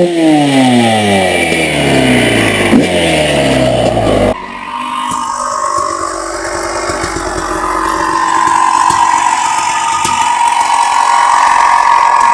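Honda CR250R two-stroke engine: a rev blip at the start, then its pitch falls steadily for about four seconds as the revs drop off. About four seconds in the sound changes abruptly to a higher, steadier two-stroke engine note that rises and dips gently.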